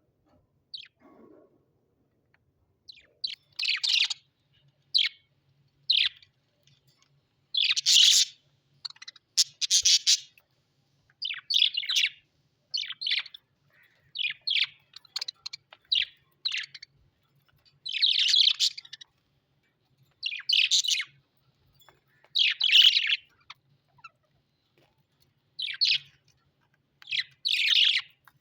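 A pet parrot giving short, high chirps in irregular clusters, sometimes several in quick succession, with short pauses between.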